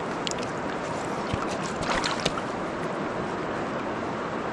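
Steady rush of flowing river water, with a few brief clicks about two seconds in.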